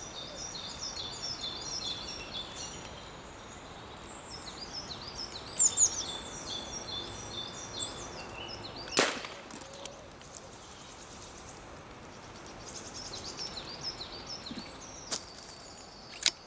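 A single sharp crack about nine seconds in: a shot from a Daystate Red Wolf pre-charged air rifle, the pellet striking a grey squirrel in the head. Small birds sing repeatedly in the background.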